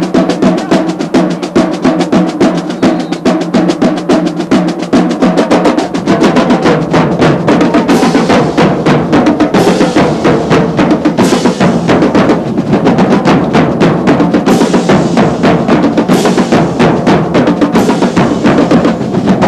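Marching band drumline, snare drums and bass drums together, playing a loud, fast cadence of rapid strokes. From about eight seconds in, a bright crash lands about every second and a half over the drumming.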